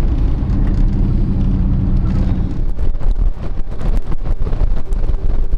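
Jeep Gladiator pickup driving on a gravel dirt road. For the first couple of seconds there is a steady low engine and road drone, then the rough rush of tyres on gravel with small stones ticking, and wind on the microphone.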